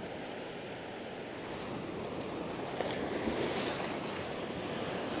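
Ocean surf breaking and washing up the beach, a steady rush that swells louder about halfway through.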